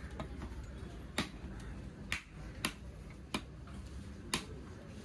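Heavy knife chopping chunks of fish on a wooden log block: four sharp chops spaced about a second apart, with a few lighter taps between them.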